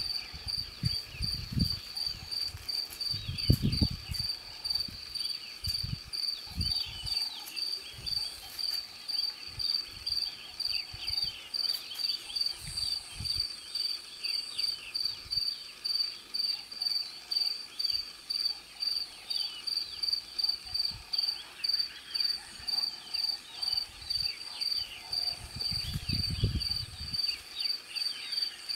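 An insect calling outdoors: a high, steady note pulsing at about two beats a second, with faint chirps underneath. Low rumbling bumps come near the start and again near the end.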